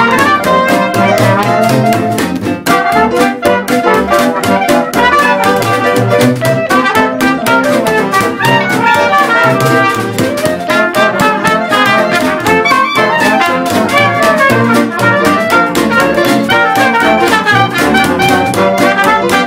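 Jazz music led by brass instruments, with a steady beat.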